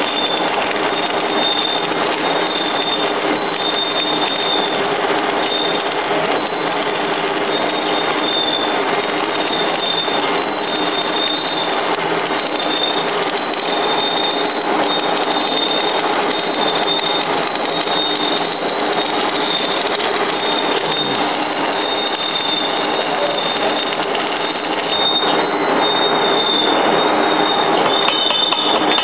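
Electric arc welding on a charcoal briquette machine's screw propeller during its repair: a steady, continuous crackle and hiss from the arc over a faint steady hum, getting a little louder near the end.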